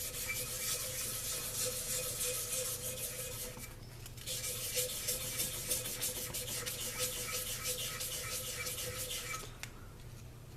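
400-grit sandpaper rubbed back and forth over a brass trigger guard in quick scratchy strokes. It pauses briefly about four seconds in and stops near the end.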